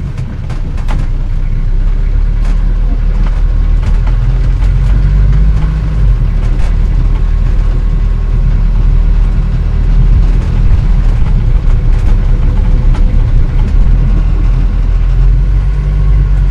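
An old car from about 1940 being driven: its engine runs with a steady low rumble, and scattered clicks and rattles sound over it. The engine grows louder over the first second or two, then holds steady.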